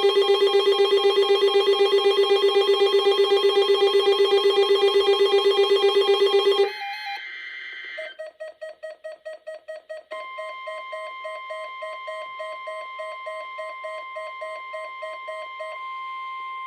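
Emergency weather alert receivers sounding their alarms for a NOAA Weather Radio required weekly test. First comes a loud, rapid pulsing beep at about seven beeps a second, which stops about seven seconds in. A quieter, different fast beeping follows, and a steady high tone joins about ten seconds in; the steady tone continues alone near the end.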